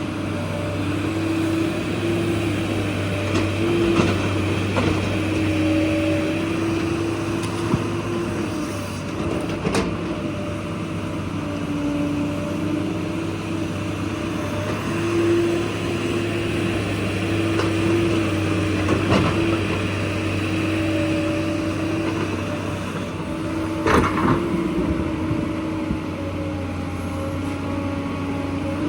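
Excavator's diesel engine running steadily under load, its pitch wavering slightly as the hydraulics work, with a few sharp knocks from the bucket striking rock and soil.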